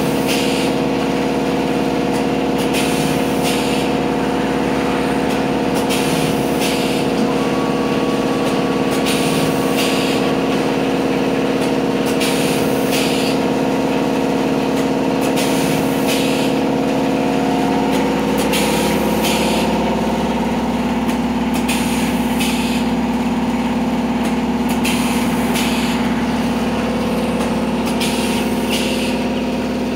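Pneumatic vertical form-fill-seal pouch packing machine with a servo auger filler running. It makes a steady hum, with short hisses of air from its pneumatic cylinders every two to three seconds, often in pairs, as it cycles through forming, filling and sealing pouches.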